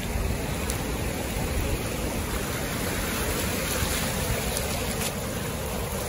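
Gulf surf washing in over shallow sand: a steady rush of water, with wind rumbling on the microphone.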